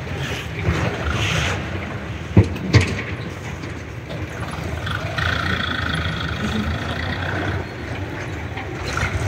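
Mahindra 595 Turbo tractor's diesel engine running as it pulls a loaded soil trailer. Two sharp knocks come about two and a half seconds in, and a steady high tone sounds for a couple of seconds past the middle.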